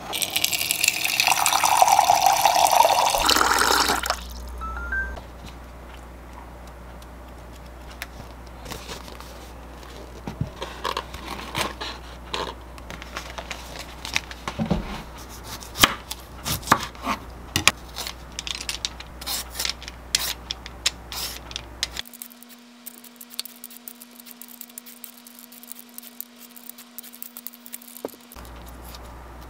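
Water pouring from a dispenser into a glass for about four seconds. Then scattered clicks, knocks and rustles of kitchen handling and pages being turned. Near the end comes the light scraping of a vegetable peeler on a Korean melon's rind.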